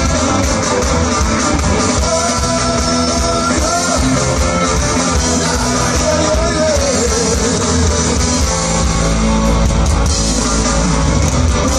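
Ska band playing live: horns, electric guitars, bass and drums, with a lead vocal over a steady beat.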